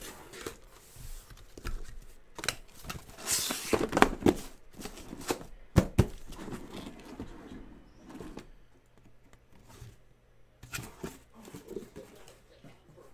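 Taped cardboard shipping case being handled and opened: cardboard scraping and rustling, tape and flaps tearing loose, with a couple of sharp knocks of the box midway.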